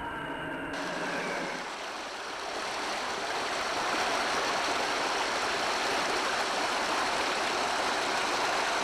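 A small mountain stream pouring over boulders into a pool: a steady rushing splash of water that comes in abruptly about a second in, as a steady hum fades out.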